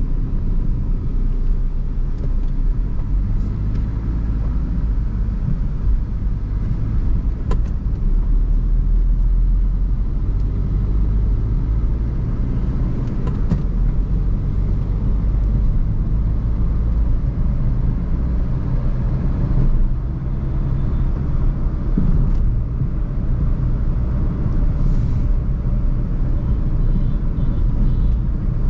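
Maruti Suzuki Swift Dzire driving along: a steady low rumble of engine and road noise, with a few faint clicks.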